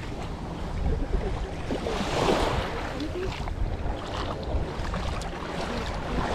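Water sloshing and splashing around a boat, with wind rumbling on the microphone; the water noise swells louder about two seconds in.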